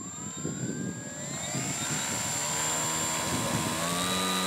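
Electric model plane's motor and propeller running up: a whine that rises over the first couple of seconds, then holds steady with a thin high tone above it, and steps up in pitch about four seconds in.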